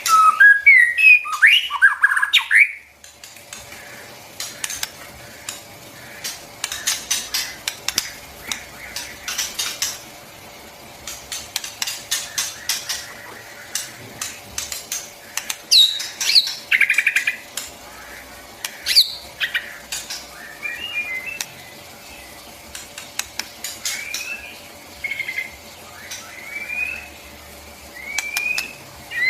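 White-rumped shama singing: loud, rich whistled phrases that glide up and down open and close the stretch, and quick runs of sharp clicking, chattering notes fill the middle.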